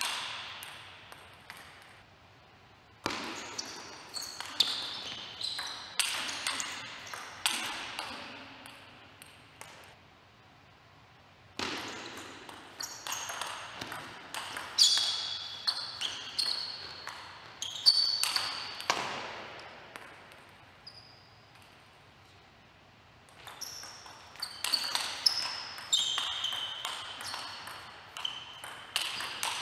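Table tennis rallies: the plastic ball clicking back and forth off the rackets and the table in quick exchanges, echoing in a large hall, with short high squeaks between the hits. Three rallies begin about 3, 12 and 23 seconds in, with quiet pauses between them.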